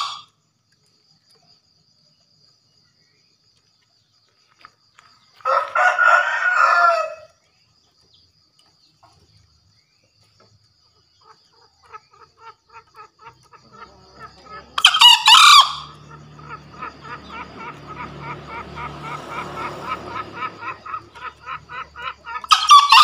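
Male green junglefowl crowing: short, hoarse, shrill crows, three times (about six seconds in, around fifteen seconds and near the end), with faint rhythmic chirping in the background.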